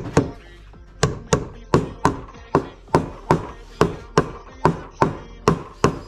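Hammer tapping on an old bearing used as a drift, driving a new drum bearing into the hub of a Kogan washing machine's rear tub. Steady metallic taps, about two a second after a single first tap and a short pause, each with a brief ring.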